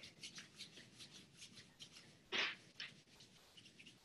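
Faint rustling and light ticking of clothing and bodies in motion as dancers move freely, with one louder short puff about two and a half seconds in.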